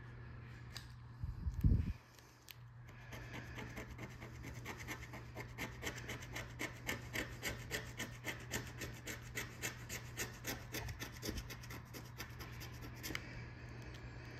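A coin scraping the coating off a paper lottery scratch ticket in quick, repeated strokes that start about three seconds in and stop near the end, after a couple of low thumps.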